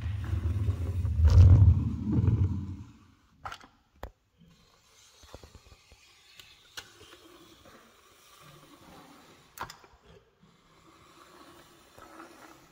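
A loud low rumble for about the first three seconds, then a caulking gun laying a bead of silicone sealant along a tile joint: faint scraping with a few sharp clicks of the gun.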